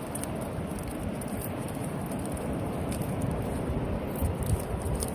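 Wind buffeting the microphone: a steady, fluttering low rumble, with faint high ticks scattered through it.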